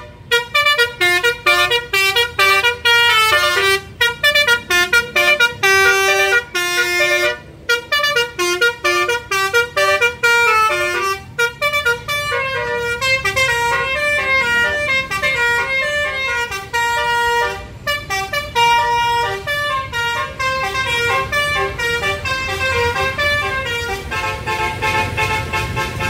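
Indonesian tourist buses' multi-tone 'telolet' musical horns playing rapid tunes, short notes jumping from pitch to pitch, in phrases with short breaks at first and almost without pause later on. Bus engine and road rumble underneath, growing near the end.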